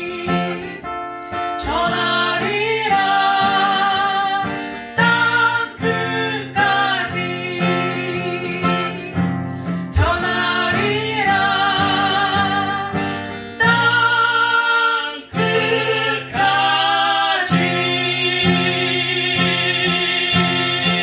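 A woman singing a Korean gospel worship song with wide vibrato, holding long notes, over acoustic guitar accompaniment.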